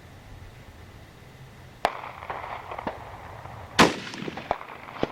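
Rifle shot from a .243 Ruger American Predator with its stock barrel, no muzzle brake fitted: a loud crack about four seconds in with a short echo, after a sharper, lighter crack about two seconds in and a few small clicks of handling.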